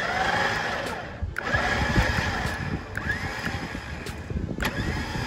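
12-volt electric winch motor running under load on the wired remote, reeling in the steel cable. It is run in short goes, and each start brings a whine that rises in pitch and then holds.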